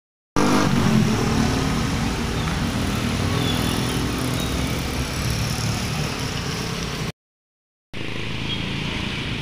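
A motor vehicle's engine running under a steady rush of noise. It starts abruptly, cuts out completely for under a second about seven seconds in, then resumes.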